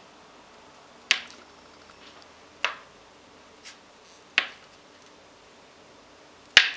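Kitchen knife slicing through a block of cold butter and tapping down on a plastic cutting board: four sharp taps about every second and a half, the last the loudest.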